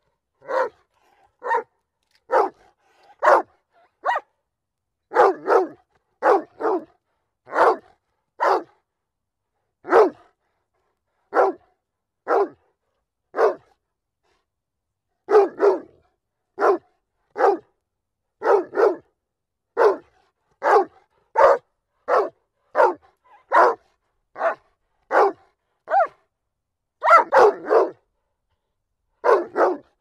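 A dog barking repeatedly: single barks about one a second, with a pause of about two seconds midway and a quick run of barks near the end.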